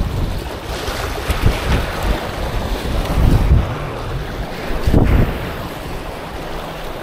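Wind buffeting the microphone over waves washing on a beach, with several louder surges.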